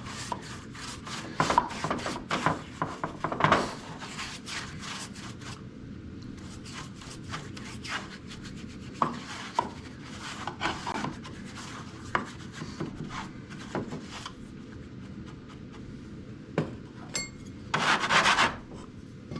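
Hand scraping and rubbing on the wood of an old machinist's tool chest drawer while old felt and hide glue are worked off. The strokes come short and irregular, in bursts, with one louder scrape of about a second near the end.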